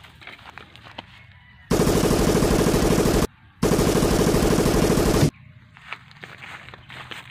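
Machine-gun fire sound effect: two bursts of rapid automatic fire, each about a second and a half long, separated by a short break.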